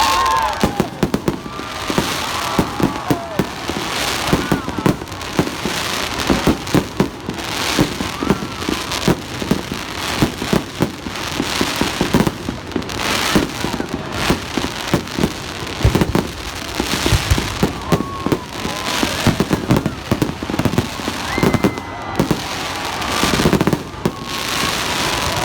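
Aerial fireworks going off in rapid, irregular succession, many sharp bangs and crackles tumbling over one another, with crowd voices underneath.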